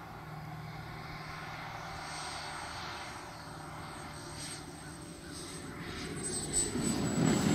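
Model jet turbine (EvoJet 170) of an RC sport jet throttled back on landing approach and touchdown: a thin, steady high whine over a rushing hiss. It gets louder over the last couple of seconds as the jet comes closer.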